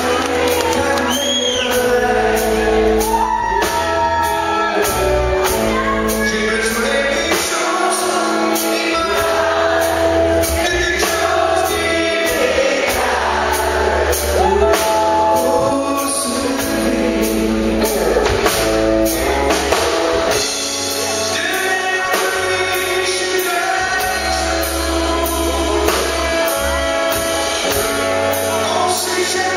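A live band playing a song: a man singing lead at the microphone over electric bass and drums, with a steady beat.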